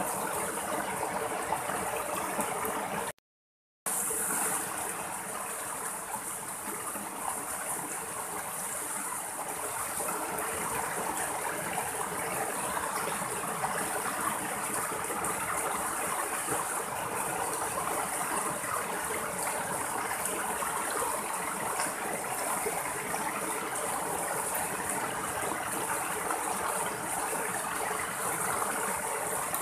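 Small rocky stream splashing and gurgling over boulders in little cascades, a steady rush of water. The sound cuts out completely for about half a second a few seconds in, then returns.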